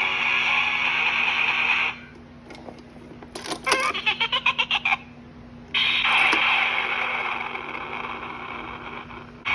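Small built-in speaker of a Monster High Sugar Skull carrying case playing its short electronic sound clips, thin and without bass. One clip cuts off about two seconds in, a quick run of pulsing sounds follows a moment later, and another clip starts about six seconds in and fades down toward the end.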